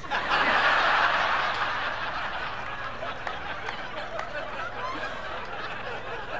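Comedy club audience laughing after a punchline, loudest at the start and slowly dying down.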